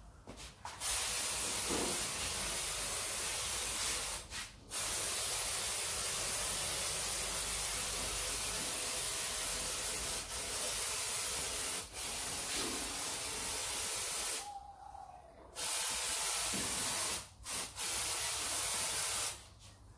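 Aerosol can of insecticide spraying in long hissing bursts. It starts about a second in, runs almost unbroken for over ten seconds after a short pause, then comes in two shorter bursts near the end.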